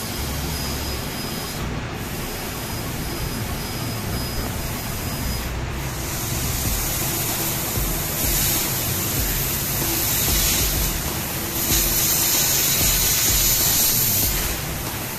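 A Senfeng 1.5 kW fiber laser cutter cutting 12 mm steel plate: a steady hiss of assist gas blowing from the cutting nozzle. It grows louder and sharper about halfway through, and again for a few seconds near the end. A faint high whine comes and goes in the first few seconds.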